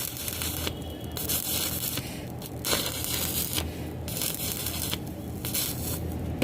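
Electric arc welding: the arc crackling and hissing in uneven spurts that stop and start every fraction of a second, over a steady low hum.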